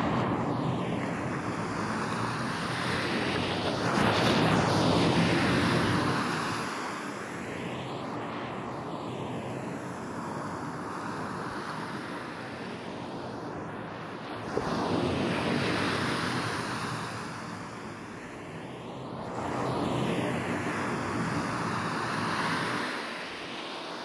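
Ocean waves breaking on a sandy beach, the surf swelling and falling back about three times. The hiss carries a repeating swirling sweep from 8D panning processing, which gives it a jet-like whoosh.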